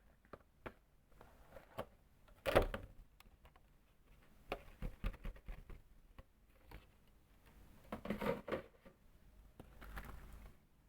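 Hands unpacking a boxed mechanical keyboard: scattered light clicks and taps of packaging being handled, with louder brief rustling or scraping bursts about two seconds in, around eight seconds in, and a softer one near the end.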